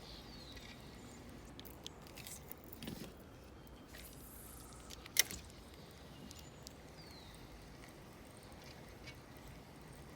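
Light knocks and clicks from handling a kayak and its fishing gear, scattered over a quiet background, with one sharp click about five seconds in.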